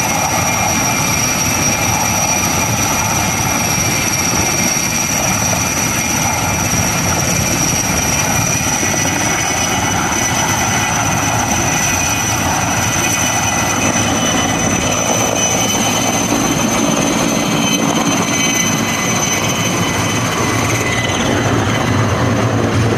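Sikorsky S-64 Air-Crane firefighting helicopter hovering low over a pond, drawing water up through its snorkel hose: loud, steady rotor and twin-turbine noise with a constant high whine over it.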